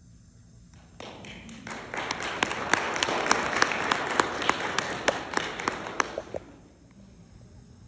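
Audience applauding, starting about a second in, swelling, and dying away after about five seconds, with many loud, sharp claps from someone close by standing out above the crowd.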